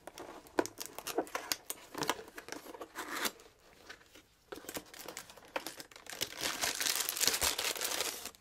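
Clear plastic packaging bag crinkling and rustling as it is handled, in scattered crackles at first and then a dense, continuous crinkle near the end.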